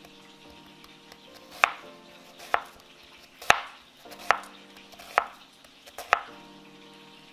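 Chef's knife slicing a white onion on a cutting board: six sharp chops of the blade onto the board, about one a second.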